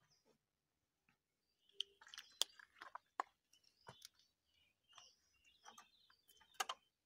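Quiet, with faint bird chirps and a scatter of short, sharp clicks starting about two seconds in.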